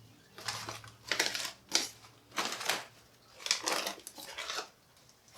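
A series of about six short rustling, clattering handling noises with pauses between them.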